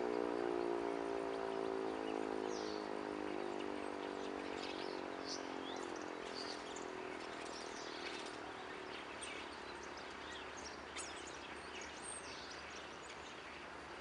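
Elektror S3 electric motor siren winding down at the end of its fire-alarm signal, its wail falling slowly in pitch and fading out over about eight seconds. Birds chirp high above it throughout.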